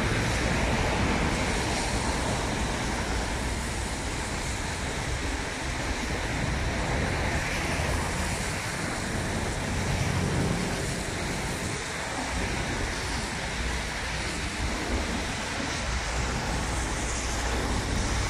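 Steady street traffic noise, with the low hum of idling vehicle engines.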